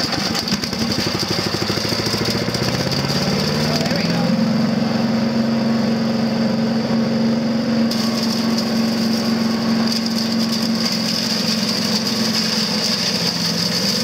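Harbor Freight Predator 212cc single-cylinder engine driving a chipper shredder, speeding up over the first four seconds or so and then running steadily at full speed. Dry leaves are being pushed into the hopper and shredded.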